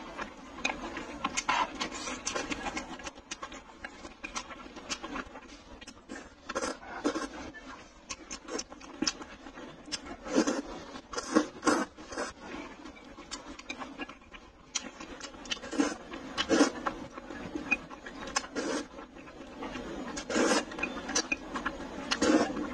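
Close-up eating sounds: a person slurping and chewing saucy stewed glass noodles, in repeated wet bursts every few seconds.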